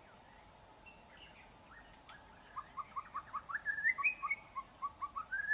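White-rumped shama singing: a few faint notes, then from about halfway a quick run of short rising whistled notes, roughly five a second, with a higher phrase in the middle of the run.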